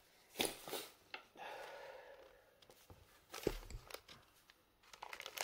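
A black marker pen is handled and uncapped with a few sharp clicks, then its tip scratches softly on origami paper as seeds are drawn on a paper watermelon. There is a dull thump about three and a half seconds in.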